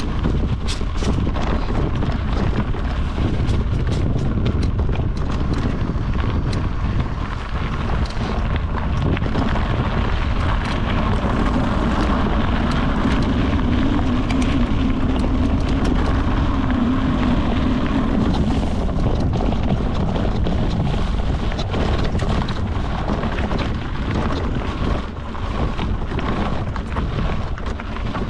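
Mountain bike descending a rocky dirt trail: wind rushing over the microphone and knobby tyres rumbling over stones, with many sharp clicks and rattles from the bike. Through the middle stretch, on a smoother gravel track, a steadier low tyre hum.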